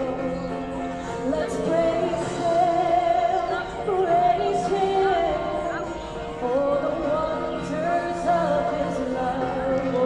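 Voices singing a hymn, with long held notes that glide between pitches.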